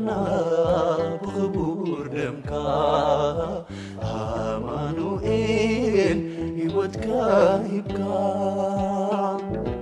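Music from a Tigrinya Orthodox hymn (mezmur): a wavering melody line over a steady low accompaniment.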